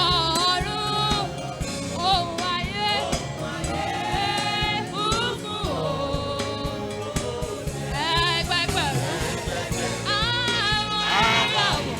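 Gospel song: several voices singing, with wavering held notes, over instrumental accompaniment.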